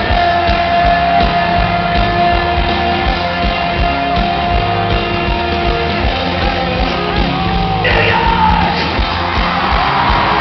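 Live rock band playing loud with singing, heard from within the arena crowd; one long held note runs through most of it, and about eight seconds in the music changes and a noisy wash of crowd shouting rises.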